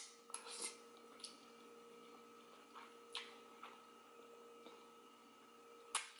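Faint eating sounds of ramen noodles: a few short, wet mouth smacks and slurps while chewing, over a steady electrical hum.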